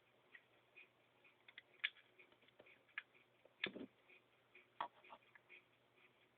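Faint, scattered small clicks and taps of plastic parts being handled as a grip panel is fitted onto a Stinger P311 spring airsoft pistol, with the loudest tap about halfway through.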